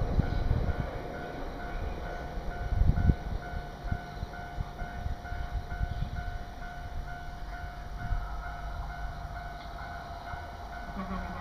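Level crossing warning bell ringing in a steady, rapid repeating beat while a Nambu Line train rumbles and clatters past on the rails. The rumble is heaviest in the first few seconds and eases later.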